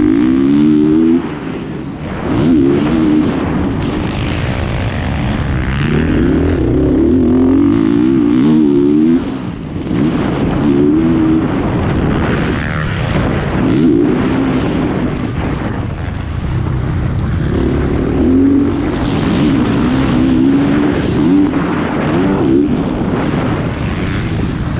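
Motocross bike engine at race pace, heard up close from the rider's position, its pitch climbing and falling again and again as the throttle is worked through the gears. The throttle is cut sharply about a second in and again about nine seconds in.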